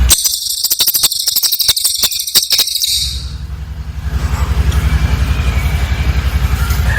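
Cililin bird giving a rapid, dense, high-pitched trill for about three seconds, then breaking off. A loud low pulsing drone runs beneath it and carries on alone after the trill stops.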